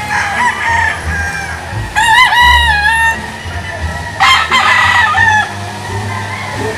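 Gamecock rooster crowing twice, once about two seconds in and again about four seconds in, each crow lasting about a second.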